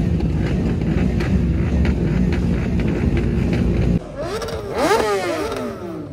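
Motorcycle engines running with a steady rumble. About four seconds in, the sound changes abruptly to engines revving up and down, their pitch rising and falling.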